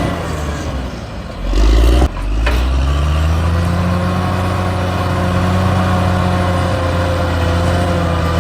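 Heavy diesel engine of an earthmoving machine, most likely the bulldozer. Its revs drop over the first second and a half, then a loud deep rumble cuts off abruptly about two seconds in. The engine climbs back up and runs steadily at working speed.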